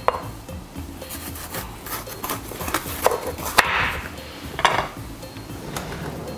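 Kitchen knife cutting a bitter melon lengthwise on a wooden cutting board: a few scattered knocks of the blade on the board, with a rasping slicing stroke through the gourd a little past halfway.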